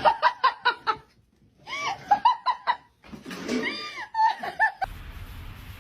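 A person laughing in several bursts of quick rhythmic "ha-ha" pulses, then from about five seconds in a steady hiss of background noise.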